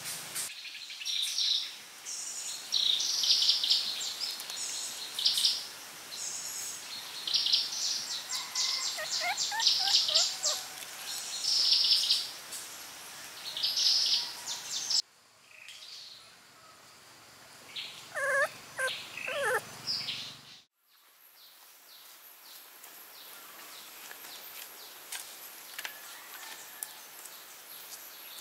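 Animal calls: high-pitched chirps in short repeated bursts, with a few lower rising-and-falling whines mixed in. The sound cuts off abruptly about halfway through, and after a second cut the last third holds only a faint hiss with a few clicks.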